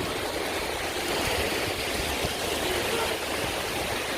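Small waves washing on a sandy beach: a steady hiss of surf, with a low, flickering rumble of wind on the microphone.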